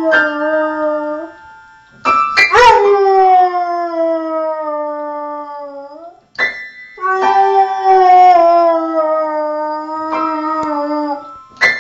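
A beagle howling long, drawn-out howls while banging upright piano keys with its forepaws. A howl ends about a second in, then two long howls follow, each sliding slowly down in pitch and set off by a cluster of piano notes.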